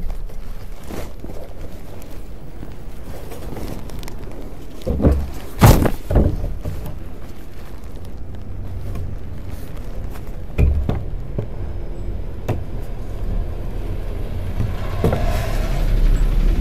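Several sharp thumps and knocks of a person climbing out past rusty metal bars, loudest about five to six seconds in, with one more near eleven seconds. Near the end a dump truck's low rumble rises as it drives past.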